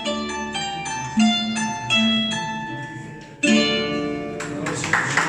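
Plucked string instrument playing the closing notes of a slow melody, ending on a final chord about three and a half seconds in; applause starts just before the end.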